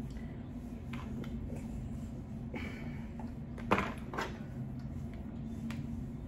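Eating sounds: small clicks of chewing and handling hard-shell tacos, with one sharp loud crunch a little past halfway and a smaller one just after. A steady low hum lies underneath.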